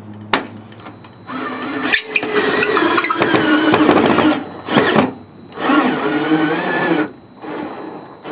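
Cordless drill driving a hidden gutter hanger's screw into the fascia board, its motor whine wavering under load: a long run of about three seconds, a short burst, then another run of about a second and a half.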